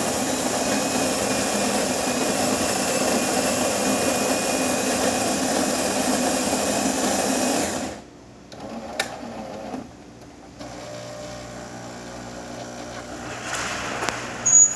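Jura C9 super-automatic espresso machine's built-in burr grinder running steadily for about eight seconds, then stopping abruptly. A click follows, then a quieter steady hum of the machine starting to brew, with a short louder burst near the end.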